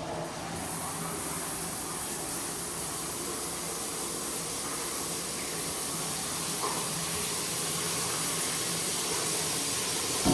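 Square rainfall shower head running, its water spraying down in a steady hiss at pretty good water pressure.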